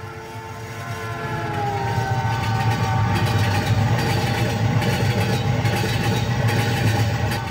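A sustained rumbling drone with several held tones over a haze of noise. It swells in over the first two seconds, then holds steady; this is the title-sequence sound effect.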